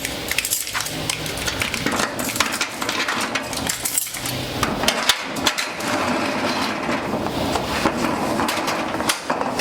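Repeated knocking and clattering of hard objects being handled and moved about, with many sharp clicks and bumps.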